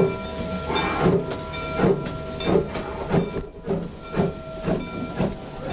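Exhaust of a 1922 Baldwin 2-8-2 steam locomotive chuffing at low speed, about two chuffs a second, over a steady hiss of steam, as the engine is worked on the throttle.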